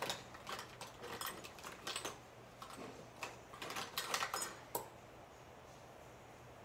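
Dry crackling and clicking of Pringles chips being crushed and crumbled by hand, in quick irregular clusters that stop about five seconds in.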